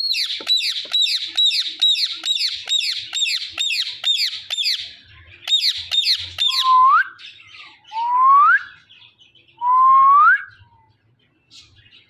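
Indian ringneck parakeet calling: a fast run of sharp, high, downward-sweeping squawks, about three a second, for the first five seconds or so, then three slower, lower whistles that each rise in pitch.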